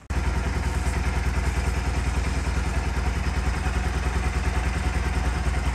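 Bajaj Pulsar NS200's single-cylinder engine idling steadily with a fast even pulse, cutting in abruptly at the start.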